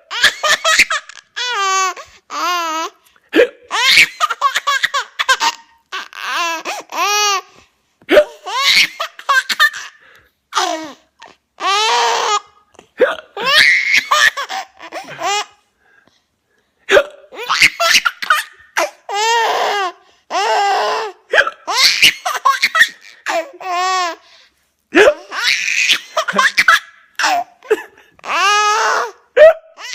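A young child laughing in repeated short high-pitched bursts, the laughter broken again and again by hiccups.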